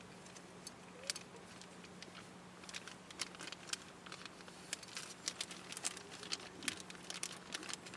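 Irregular light crackles and clicks, sparse at first and growing denser about halfway through, over a faint steady low hum.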